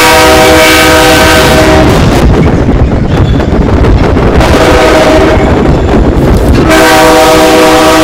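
Multi-chime train air horn sounding a chord, boosted until it distorts. A blast of about two seconds opens, a weaker one comes in the middle, and another starts near the end, with loud distorted noise between them.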